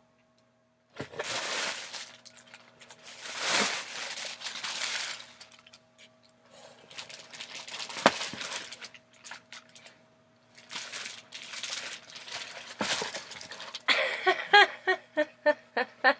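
Paper and cardboard packaging being handled as a box is unpacked: crinkling and rustling in repeated bursts, with a few sharp clicks. Near the end comes a quick run of short pitched pulses.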